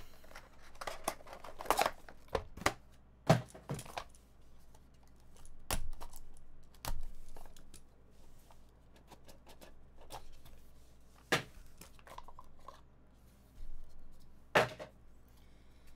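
Cardboard trading-card box being opened by hand: the inner box sliding out of its sleeve, the lid lifted and the cards taken out. It comes through as a scattered series of sharp taps and short scraping rustles.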